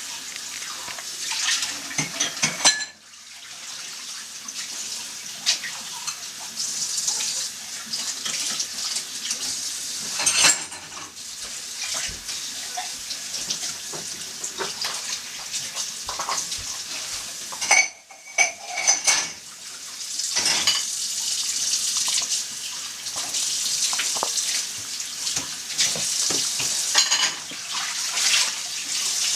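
Kitchen tap running into a sink while dishes and cutlery clink and knock against each other, as in washing up. The flow drops out briefly about three seconds in and again near the middle.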